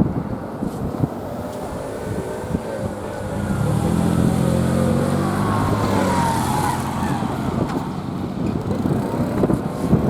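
A diesel train passing over a level crossing: its engine hum swells about a third of the way in, holds for several seconds, and fades near the end, with faint falling tones above it as it goes by. Wind buffets the microphone before and after.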